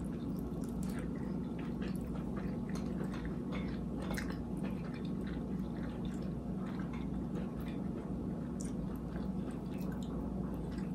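Close-up chewing and wet mouth sounds of someone eating takeout food, with many small irregular clicks over a steady low hum.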